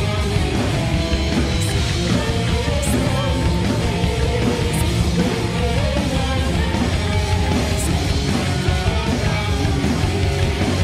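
Live rock band playing: electric guitar, bass and drums, with a woman singing over them and a few cymbal crashes.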